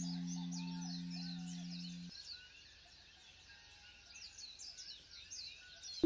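A singing bowl tone rings on, fading, and cuts off suddenly about two seconds in. Birds chirp throughout with many quick falling calls, which are left alone after the tone stops. A new singing bowl tone starts right at the end.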